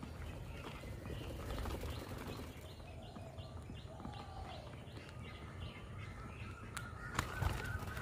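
Birds calling: a run of short, evenly repeated chirps about three a second, with a couple of lower gliding notes. A few sharp clicks near the end are the loudest sounds.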